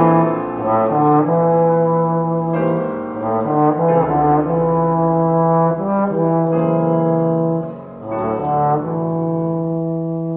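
Trombone playing a classical melody with Steinway grand piano accompaniment: long held notes broken by quicker runs of shorter notes.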